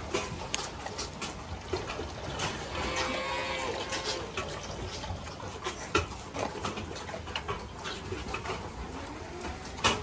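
Calves mooing, a few drawn-out calls, among short knocks and clanks.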